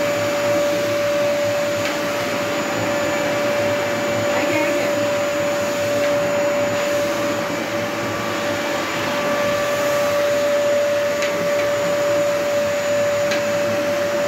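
Vacuum cleaner running steadily, its motor noise constant with a steady whine.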